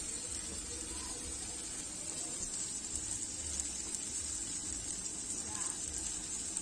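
Chicken curry masala frying in a metal pot over a wood fire: a steady, even sizzle.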